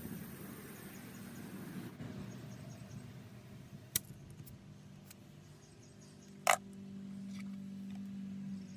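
A low steady hum, with two short sharp clicks about two and a half seconds apart.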